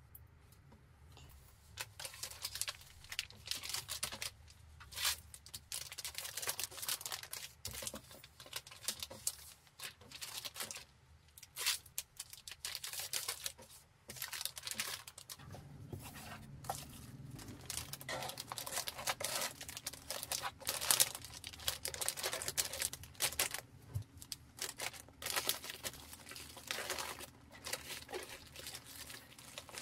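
Clear plastic packing bags crinkling and rustling in quick, irregular bursts of crackle as fabric pouches are slipped in and packed. Near the end, bubble wrap and cardboard box flaps are handled.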